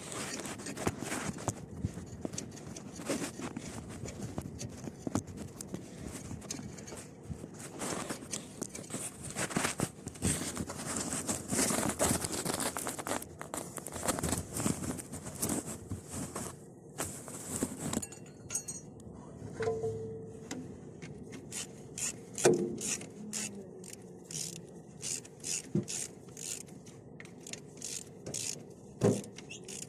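Metal scraping and clinking of hand tools and parts while the oil cooler assembly is fitted to a bulldozer. About two-thirds of the way in this gives way to a run of short, sharp clicks in quick succession.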